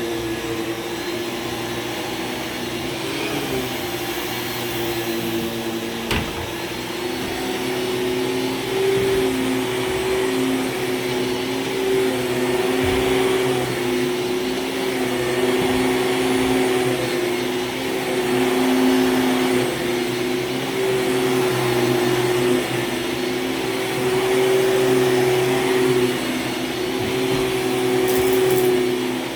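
Hoover Supremacy canister vacuum with Quadraflex power nozzle running, a steady motor hum and airflow rush. From about a quarter of the way in, the sound swells and dips every couple of seconds. There is one sharp click about six seconds in.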